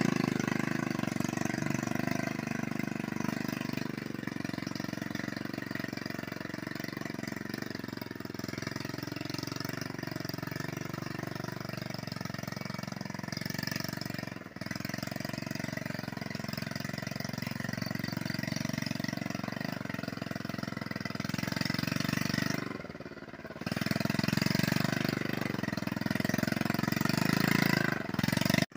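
Small single-cylinder engine of a "motor Sukhoi", a mountain motorcycle fitted with a cargo rack, running under steady load as it climbs a dirt trail, with a brief drop in level about three-quarters of the way through.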